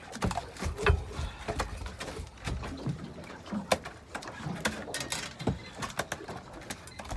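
Irregular knocks and clicks of handling gear and a freshly netted fish aboard a small boat, over a low, uneven rumble of wind and water.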